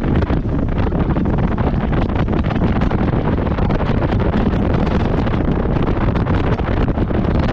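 Wind buffeting the microphone: a loud, steady low rumble with constant small gusty crackles.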